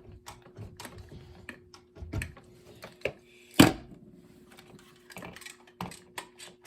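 Hard plastic carbon monoxide alarm units being handled and set up: a scattered series of clicks and knocks, with one louder knock about three and a half seconds in.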